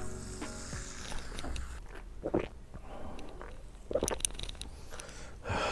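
A person eating: chewing and biting into food, with a few short, sharp bites. Background music dies away about a second in.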